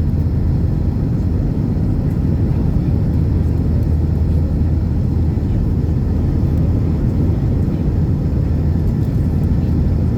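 Jet airliner during its climb after takeoff: a steady low engine and airflow rumble with a constant hum underneath.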